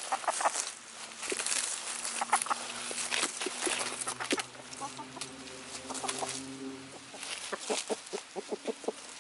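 Chickens clucking softly with a low, drawn-out murmur while foraging, with many short ticks and rustles from pecking and scratching in dry leaves.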